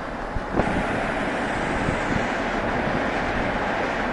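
Tenryū Hamanako Railroad TH2100-series diesel railcar standing at the platform: a low rumble throughout, with a steady hiss that starts about half a second in and cuts off near the end.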